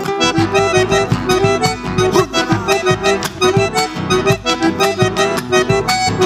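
Instrumental passage of Argentine folk music: an accordion plays the melody over guitar, with a steady pulsing beat.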